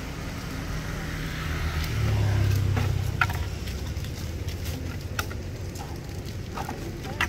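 A vehicle engine running with a steady low hum that grows louder about two seconds in and eases off a second later, with a few short sharp sounds over it.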